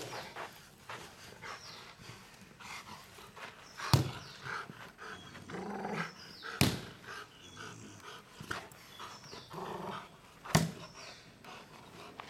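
Rottweiler barking and panting as it lunges at a leather ball. Three sharp thumps, about four, six and a half and ten and a half seconds in, are the loudest sounds.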